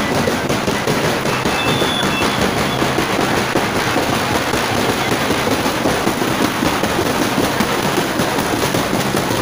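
Many large parade drums beaten with sticks in a fast, dense, unbroken rhythm.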